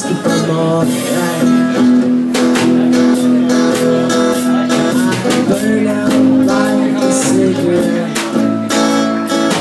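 Live music: an acoustic guitar strummed along with drum and cymbal percussion, and a man's voice holding long sung notes.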